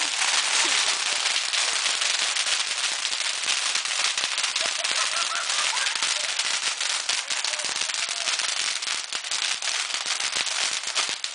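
Firework burning and spraying sparks with a steady hiss and dense crackling throughout, after relighting from a premature blow-up in which it seemed to have gone out.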